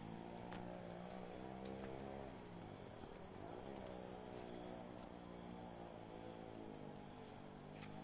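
Motorcycle engine running steadily; about three seconds in its pitch drops and then climbs back up as the revs fall and rise again.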